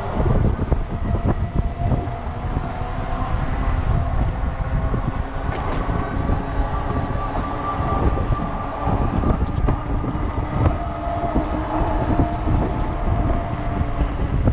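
Strong gusty wind buffeting the microphone while riding a fat-tire e-bike, with a faint steady hum running underneath.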